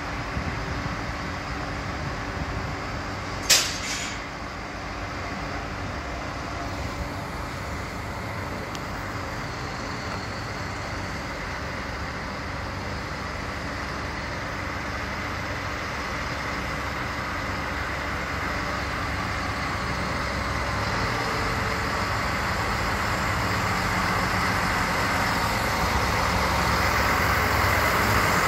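Trains in a station, then an X 73500 diesel railcar drawing in toward the platform, its running noise growing steadily louder through the second half. A short, loud burst of hiss sounds about three and a half seconds in.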